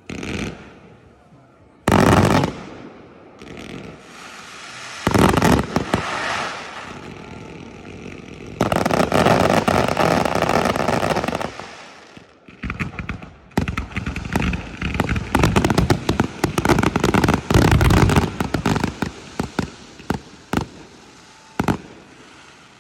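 Fireworks display: single shell bursts, then a dense sustained stretch, then a rapid barrage of many bangs in quick succession that thins out near the end.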